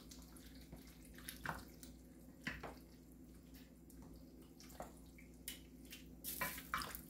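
Wooden spoon stirring wet cooked bow-tie pasta in an enamel pot: soft squelching scrapes and a few light clicks, over a faint steady hum.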